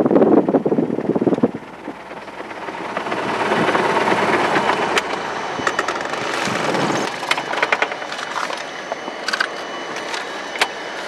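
Wind buffeting the microphone, cut off suddenly about a second and a half in. Then a hiss that swells and fades, with scattered clicks and knocks from handling inside a small plane's cabin.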